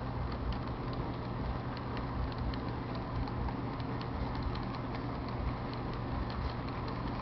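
Model train freight cars rolling past on the track: a steady running noise with many light, irregular clicks and a constant low hum.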